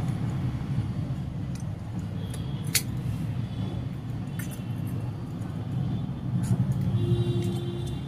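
A few light metallic clicks and clinks from small carburetor parts being handled and fitted, over a steady low rumble.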